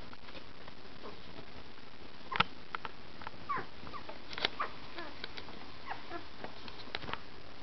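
13-day-old puppies nursing, with scattered small suckling clicks and smacks and a few brief, faint squeaks and grunts. A sharper click about two and a half seconds in is the loudest sound.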